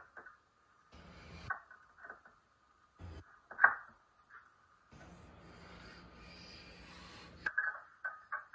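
Metal engine crankcase halves being handled and fitted together: scattered clinks and knocks, the sharpest about three and a half seconds in, then a couple of seconds of scraping rub and a quick run of light taps near the end.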